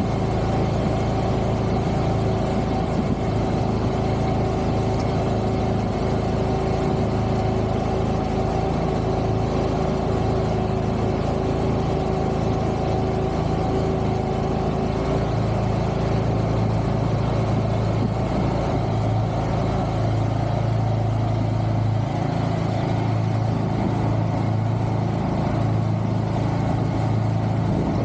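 Wilcraft amphibious vehicle's engine running steadily under way on open water: an even, unchanging drone with several steady tones over a wash of noise.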